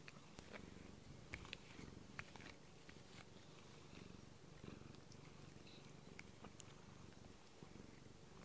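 Domestic cat purring softly close by: a faint, steady low rumble, with a few small clicks over it.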